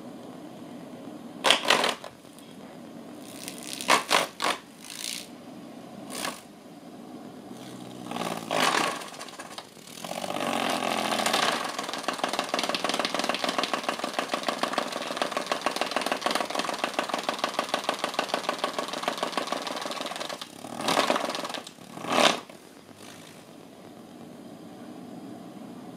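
Small ball-shaped electric desk fan running, with a fast, even rattle of about six pulses a second for some ten seconds in the middle. Several sudden scraping bursts come as a Bengal cat paws at and bumps against the fan.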